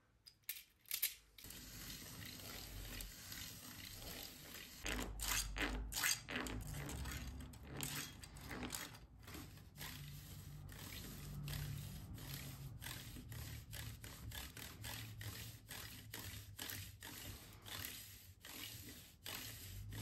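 3D-printed plastic square fidget toy of nested rings being twisted by hand, its layers scraping and clicking against each other and sliding on a cork board in a long run of quick, irregular scrapes. It begins about a second and a half in.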